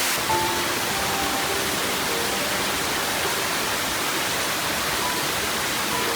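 Steady rushing of a waterfall, an even roar of falling water, with a few faint held notes of background music over it.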